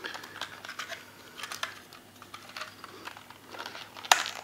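Light clicking and rattling of a small clear plastic box of fishing hooks being handled, with a sharper click about four seconds in.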